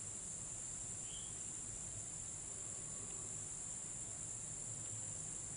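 Steady, high-pitched chorus of insects, crickets or their kin, droning without a break, with a short faint chirp about a second in.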